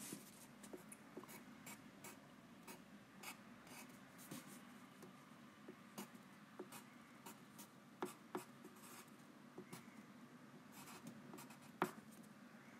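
Faint sounds of handwriting: light scratching and tapping of a writing tool on a surface, with a couple of sharper taps, about eight seconds in and near the end.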